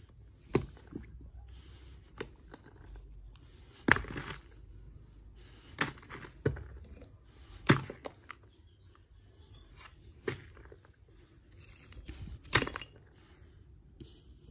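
Hard strikes against a concrete step and its bricks, about eight sharp knocks and cracks at irregular gaps of one to two seconds: the paved ground is being hit to break it open and is not giving way.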